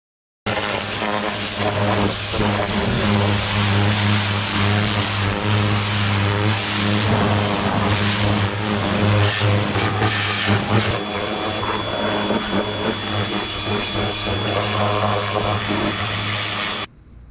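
Pressure washer running: its motor hums steadily under the hiss of the water jet spraying the metal tractor frame. A thin high whine joins partway through, and the sound cuts off suddenly near the end.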